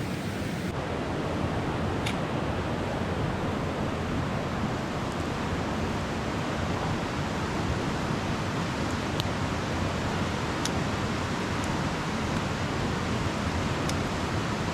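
Steady rushing of a river, with a few faint sharp clicks over it.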